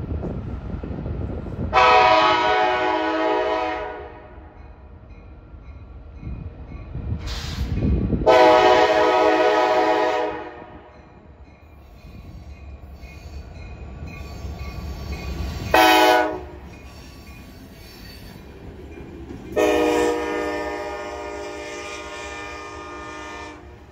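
Diesel freight locomotive's air horn sounding the grade-crossing signal: two long blasts, one short and a final long one, over the low rumble of the approaching locomotive. Near the end the train's flatcars begin rolling past.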